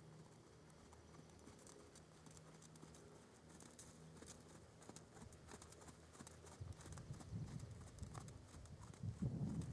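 Pony's hoofbeats on arena sand, dull and faint at first, growing louder over the last few seconds as the pony comes nearer.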